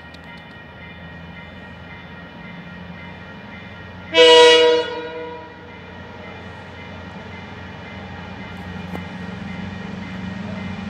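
Horn of an approaching pair of KiwiRail DL-class diesel-electric locomotives: one loud blast of several notes at once, about four seconds in and lasting about a second. Under it, the locomotives' low engine drone grows steadily louder as they draw near.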